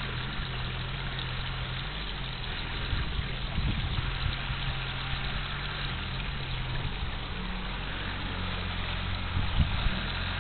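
Diesel engine of a tracked excavator running, its low hum stepping in pitch a couple of times, with a few low thumps about four seconds in and again near the end.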